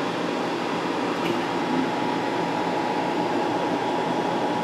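Steady mechanical hum and hiss, like a running fan or air conditioning, with a faint steady tone just under 1 kHz throughout.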